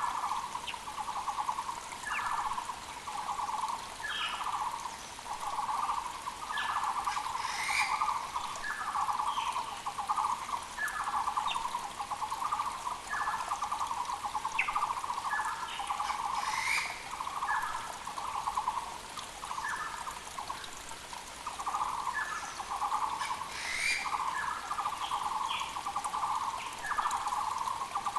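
Muller's barbets calling in long, overlapping runs of rapid repeated notes at one low pitch, the loudest sound in the forest. Short higher chirps from other birds break in every second or two, over a faint running creek.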